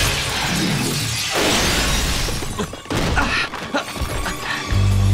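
Animated action sound effects of an armored truck crashing, with breaking glass, followed by scattered small debris impacts. A low music drone comes in near the end.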